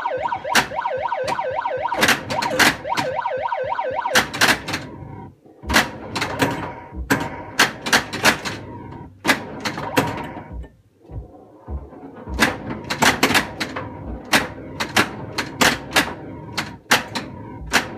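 1982 Bally Space Invaders pinball machine in play: flippers and playfield solenoids clack sharply, many times at irregular intervals. Over the clacks, the machine's electronic sound effects warble in rising and falling tones, most densely in the first five seconds.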